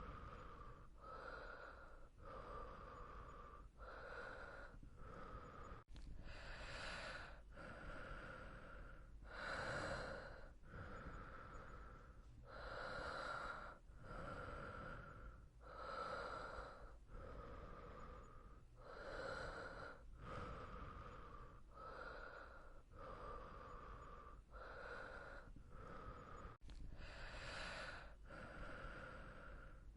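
A person breathing audibly in and out in a steady run of breaths, about one every second, some fuller and louder than others.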